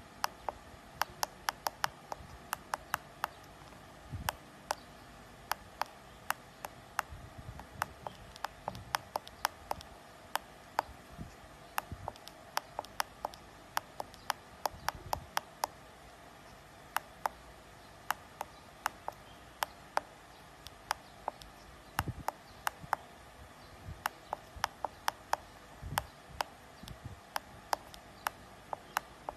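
Small tactile push buttons on a voltage protector's display board clicking as they are pressed over and over, often in quick runs of several clicks a second, while the protection settings are stepped through. A few dull low knocks come in among the clicks.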